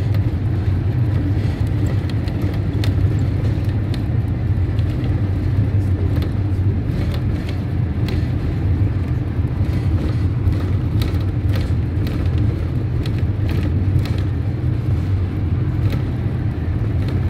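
Steady road and engine rumble of a car driving at speed, heard from inside the cabin.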